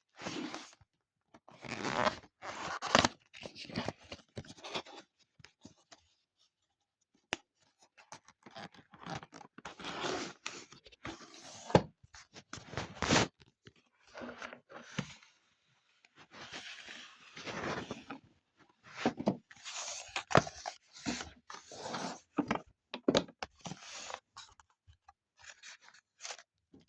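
Scraping, crunching and rustling of plastic and cardboard packaging being handled in irregular bursts, with sharp clicks, as a model Class 158 train is unboxed.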